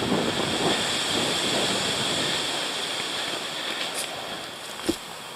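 Gusty wind rushing through trees and buffeting the microphone, easing off about halfway through, with a short thump near the end.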